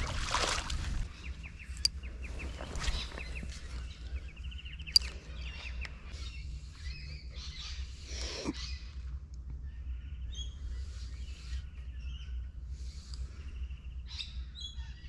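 Small birds chirping and calling, with short trills, over a steady low background rumble; a brief rush of noise comes right at the start.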